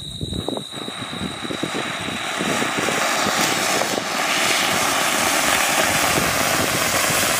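Medium-sized anar (flower pot fountain firework) burning, its spray of sparks giving a steady hiss full of small crackles that swells louder about two and a half seconds in.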